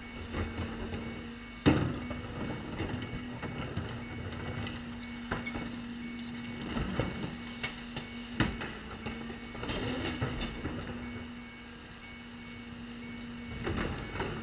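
Rear-loader garbage truck running at idle with a steady hum while plastic wheeled trash carts are tipped into its rear hopper, knocking and banging against the hopper edge; the loudest bang comes about two seconds in, with further knocks through the rest.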